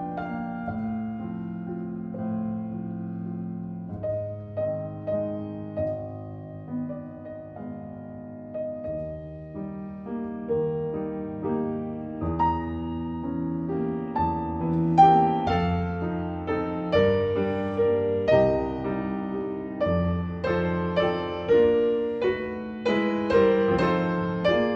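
Instrumental piano music, a slow, gentle piece of struck notes over sustained bass notes, growing fuller and louder about halfway through.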